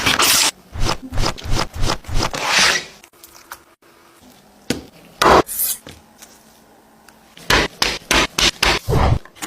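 Kitchen food-prep sounds while chicken drumsticks are prepared. A quick run of knocks and scrapes lasts about three seconds, a single loud knock comes about five seconds in, and another quick run of knocks follows near the end.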